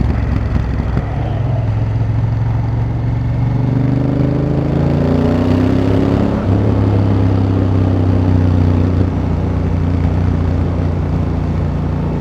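Honda Africa Twin CRF1000L's parallel-twin engine under way, rising in pitch as the bike accelerates. It drops to a lower note about six and a half seconds in and then runs at a steady pitch.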